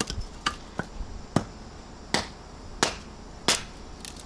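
Hatchet splitting kindling on a wooden chopping stump: four sharp chops a little under a second apart, after a few lighter knocks in the first second.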